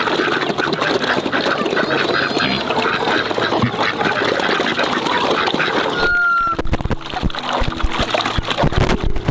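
A flock of farm poultry calling and chattering all together, many short overlapping calls. About six seconds in the sound changes to a brief high whistle-like tone and a few low knocks.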